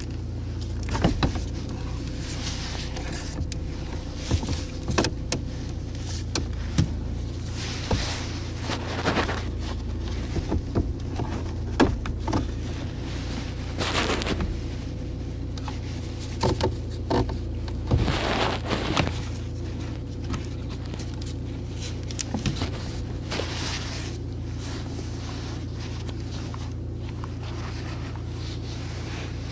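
Scattered clicks, knocks and short rustling scrapes of a BMW E90's factory stereo unit being worked out of its dashboard slot, its casing knocking against the plastic trim, over a steady low hum.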